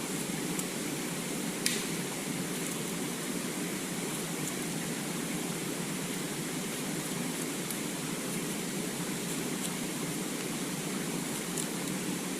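Steady rushing of falling water from a waterfall, with a few faint clicks.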